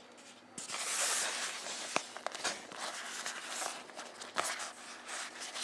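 Packaging being handled, rustling and crinkling with small clicks, starting about half a second in.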